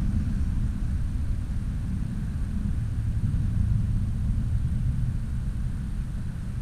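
Steady low rumble of distant motor traffic.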